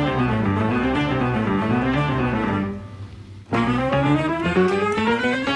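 Instrumental background music with sustained pitched notes that change in steps. It drops away briefly about three seconds in, then comes back.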